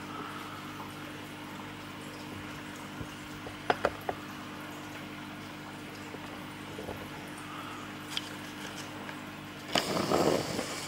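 Steady low hum of aquarium equipment with water trickling and circulating in the tank. A few light clicks come about four seconds in, and a short louder rustling burst near the end.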